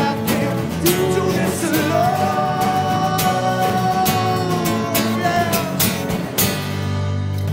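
Live band playing: strummed acoustic guitars over electric bass, with a sung vocal line that holds one long note from about two seconds in.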